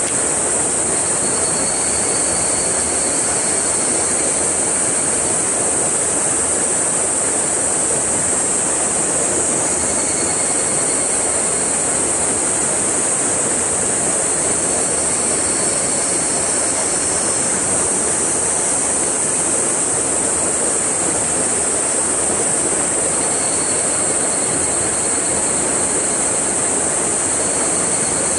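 Stream water pouring into a rocky pool, a steady loud rush that does not let up.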